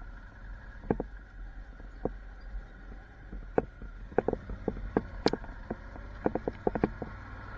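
Motorcycle engine running low and steady at slow speed, with irregular light ticks and taps, more of them in the second half.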